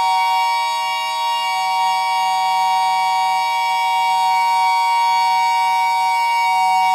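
Ensemble music holding a steady drone: several sustained high tones sounding together as a chord, over a faint low hum, with no change in pitch.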